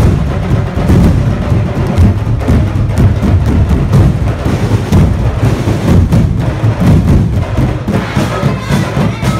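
Dinagyang tribe street percussion ensemble playing live: massed drums beating a dense, driving rhythm, with wooden clacks from bamboo percussion.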